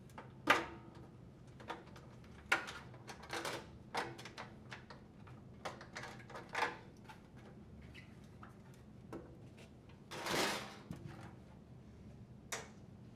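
The two halves of a GE dryer door being pried apart by hand: scattered sharp clicks and snaps, with a longer scrape about ten seconds in.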